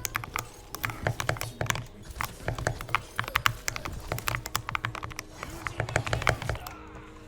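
Fast, continuous typing on an Epomaker SK64 mechanical keyboard modded with lubed switches and stabilizers, a dense irregular patter of keystrokes that thins out near the end.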